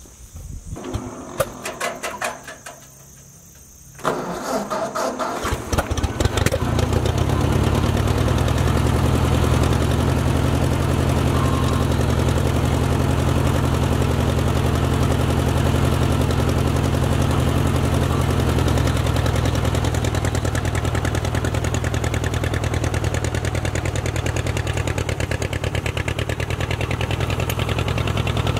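The 1953 Ford Jubilee tractor's four-cylinder gasoline engine starts about four seconds in, catching after an uneven moment. It then runs steadily, pulling a two-bottom plow.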